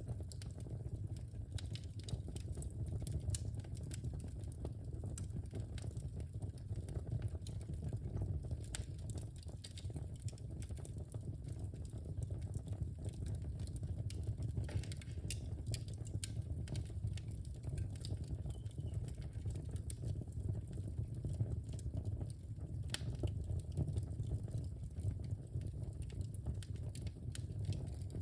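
Wood fire burning in a fireplace: a steady low rumble of flames with frequent small scattered crackles and pops.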